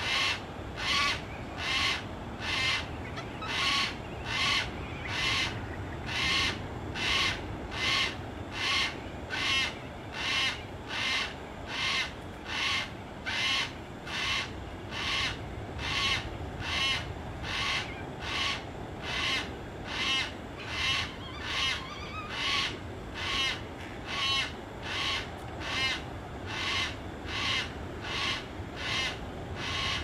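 Yellow-tailed black cockatoo calling over and over, a short call repeated at a steady pace a little more than once a second.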